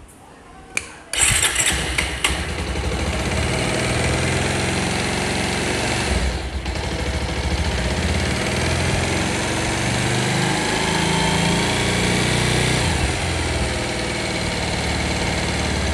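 A freshly rebuilt Bajaj Pulsar motorcycle's single-cylinder four-stroke engine starting about a second in after a click, then running steadily with the revs rising and falling a little. The engine has new piston rings, and its valve tappets are not yet adjusted and still loose.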